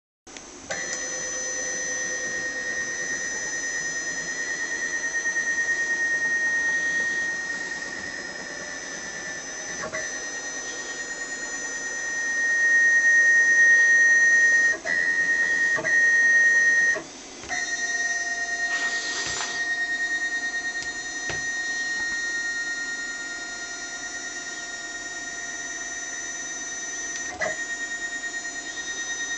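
Stepper motors of a small hobby CNC machine whining with steady high-pitched tones that change pitch and level several times as the machine changes moves, with a brief hiss a little past the middle.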